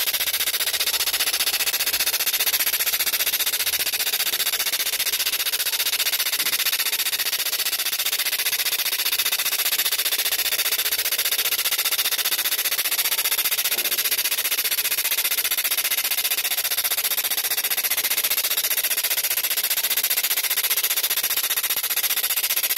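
Laser cleaner ablating graffiti paint off a stone block: a steady, dense, high-pitched crackle of very rapid pops where the beam hits the surface.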